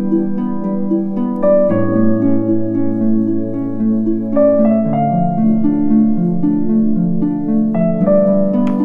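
Soft instrumental background music: plucked, harp-like notes over held chords, with the chord changing every second or two.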